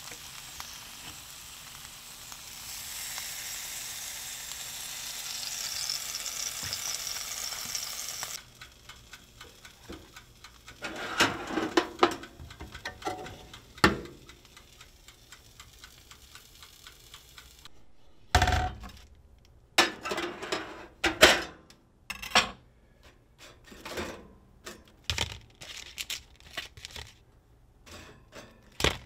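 Mahi fillets sizzling in a cast-iron skillet, a steady frying hiss that cuts off suddenly after about eight seconds. Then come scattered clicks, clatters and sharp knocks from a countertop toaster oven's door and from handling on a kitchen counter, the loudest a little past the middle.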